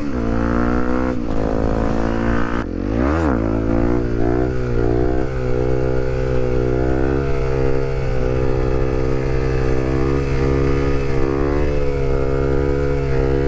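Honda CRF250L's 250 cc single-cylinder four-stroke engine running under way on a ride, its revs wavering gently, with a quick drop and climb in revs about three seconds in.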